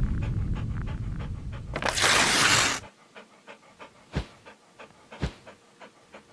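Dog panting sound effect, short quick breaths a few times a second, over a low rumble. About two seconds in a loud whoosh cuts across; then the rumble stops and the panting goes on faintly, with a few soft thumps.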